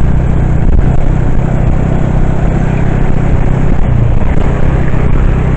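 A motor vehicle's engine running steadily with loud road and wind noise, heard from on board while it drives along.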